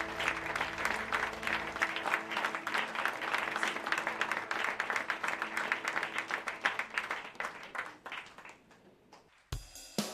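Concert audience applauding, the clapping thinning out and fading over the last couple of seconds; a held electric guitar chord rings under it at first. Near the end, band music with a drum kit cuts in abruptly.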